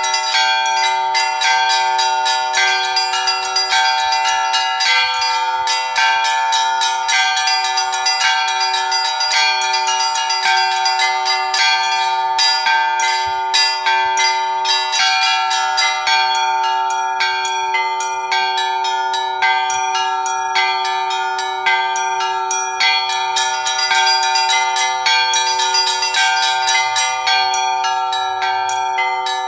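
Russian Orthodox church bells ringing: smaller bells struck in a quick, continuous pattern over the steady hum of larger bells.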